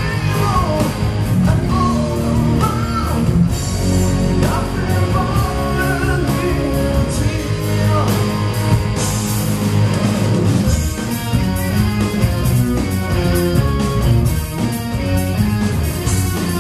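Live rock band playing: a singer over electric guitars, bass, keyboards and drum kit. About ten seconds in the singing drops out and the guitars carry on.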